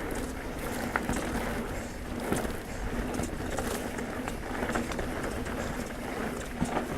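Pivot Trail 429 mountain bike being ridden on a dirt trail: steady tyre and ground noise with many small clicks and knocks from the bike over rough ground, and a faint steady hum underneath.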